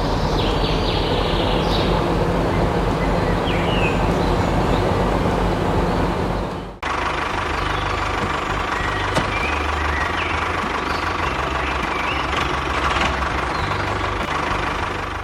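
A motor running steadily with a low drone. It breaks off abruptly about seven seconds in and then runs on.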